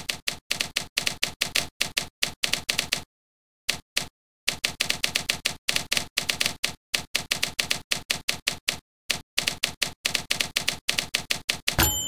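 Typewriter keystroke clack sound effects from a typewriter-simulating word processor, coming in quick uneven runs of several a second with a few brief pauses. Near the end a single bell ding rings out: the margin bell, which chimes as the line nears the right margin.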